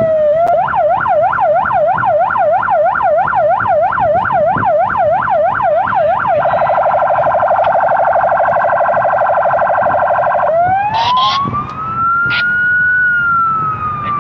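Police patrol car's electronic siren switching through its tones. It starts with the tail of a falling wail, then a fast yelp sweeping up and down about three times a second, then a much faster warble from about six seconds in. From about ten seconds in comes a long wail that rises and then slowly falls, with a few sharp clicks near its start.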